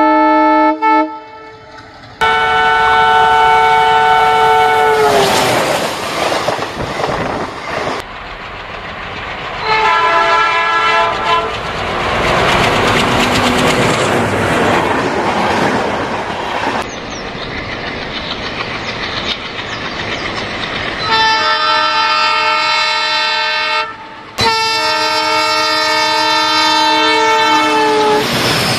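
Indian Railways diesel locomotive horns sounding four long blasts as trains pass close by at speed, the pitch falling at the end of some blasts as the locomotive goes past. Between blasts, the loud rushing rumble of the passing train's engine and coaches.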